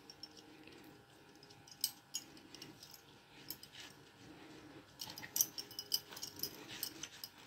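Bangles clinking faintly on the wrists as hands pinch shut and pat flat a stuffed ball of paratha dough: scattered light clicks and jingles, coming more often about five seconds in.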